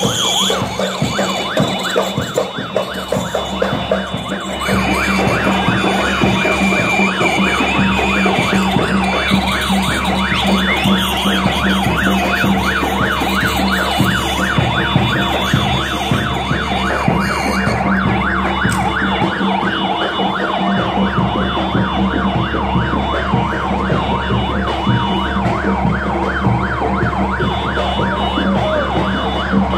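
Electronic siren sounding a rapid yelp, its pitch rising and falling several times a second without a break.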